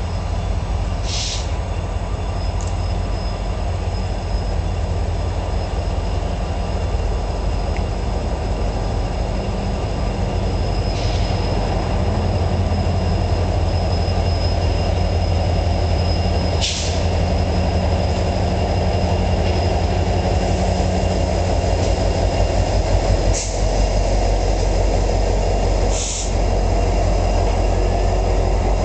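A lash-up of EMD and GE diesel freight locomotives (an SD70M-2, an SD60 and two C40-9Ws) rolls slowly past with a steady, heavy engine rumble. Over it runs a thin, steady high wheel squeal, and a handful of short, sharp high squeaks break in now and then.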